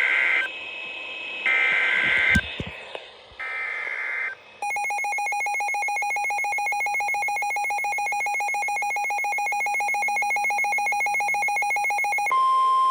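NOAA Weather Radio Emergency Alert System activation. It opens with three short screeching bursts of SAME digital header data, a harsh two-tone modem warble. A rapidly pulsing electronic alert beep follows, and near the end the steady 1050 Hz Warning Alarm Tone begins, signalling that a warning is about to be read.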